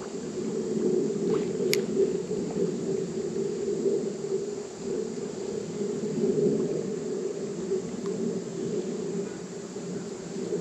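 Steady low rush of flowing creek water, with a couple of faint clicks about two seconds in.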